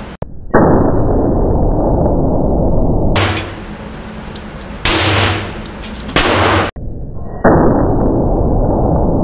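Browning Buck Mark Camper .22 LR pistol firing CCI Stinger rounds: two shots about seven seconds apart, each a deep blast that lasts a couple of seconds.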